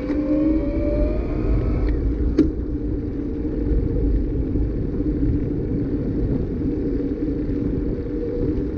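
A bicycle rolling along asphalt with wind on the microphone: a steady low rumble with a constant hum. A faint rising whine fades out about two seconds in, and there is a single sharp click just after it.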